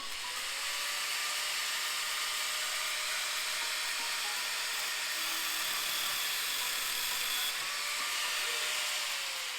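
Power tool cutting through a steel rod with a steady, hissing whine; near the end the motor's pitch falls as it winds down.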